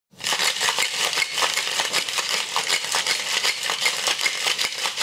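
Ice rattling hard inside a metal cocktail shaker as it is shaken, a rapid clatter that goes on without a break.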